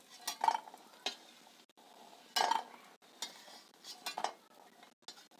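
A metal spoon scraping and clinking against a kadhai as fried besan badi are scooped out of the hot oil. The scrapes and clicks are short and scattered, about half a dozen, and the longest is a scrape about two and a half seconds in.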